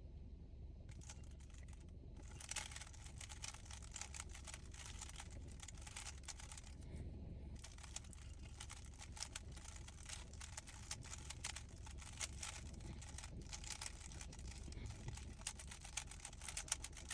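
Rubik's cube being turned quickly by hand: a dense run of light plastic clicks and clacks as the layers snap round, with a brief pause about seven seconds in.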